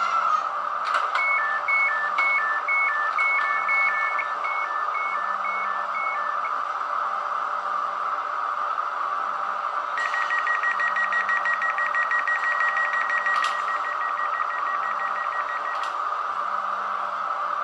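Sound decoder in an H0 model of the ÖBB 4020 S-Bahn electric multiple unit, playing through the model's small speaker: a steady electrical hum. About a second in, a two-tone alternating beep starts and runs for some five seconds. Later a rapidly pulsing single-tone beep sounds for about six seconds.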